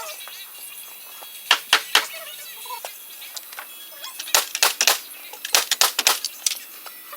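A series of sharp knocks: three about a quarter second apart, then two quick clusters of several knocks each in the second half.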